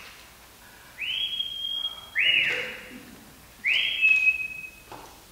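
A person whistling a wolf whistle by mouth, loud and shrill: a rising note held for about a second, then a note sliding down. A second rising, held whistle follows near the end.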